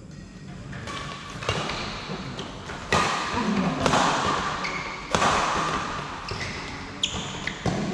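Badminton rackets striking a shuttlecock during a fast doubles rally: sharp hits every second or two, with shoe noise and faint voices in the hall.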